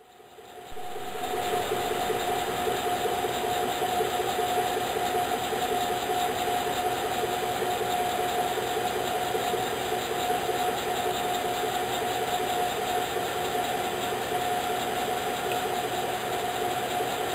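Chevrolet Avalanche's 5.3 L Vortec V8 idling, heard from underneath the truck, with a steady high whine over the running. The sound fades in over the first second, then holds even.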